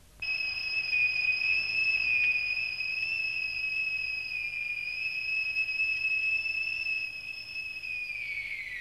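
Factory whistle blowing the six o'clock end-of-work signal: one long, steady high note that starts abruptly and slides down in pitch near the end as it winds down.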